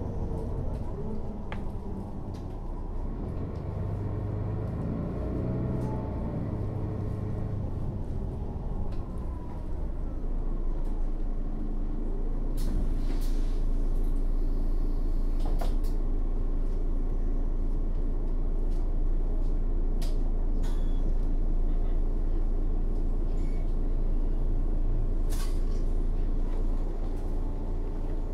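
Mercedes-Benz O 530 Citaro city bus in service, heard from on board: engine and drivetrain running, with a whine that rises and falls for the first several seconds, then a steadier, slightly louder drone from about ten seconds in. A few sharp clicks and knocks sound over it.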